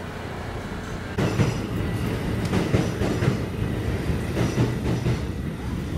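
Subway train running on the rails, a steady rumble with frequent clattering clicks from the wheels. It gets louder about a second in.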